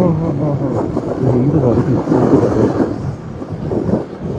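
Men talking, words not clear, over a steady low rumble of vehicle noise.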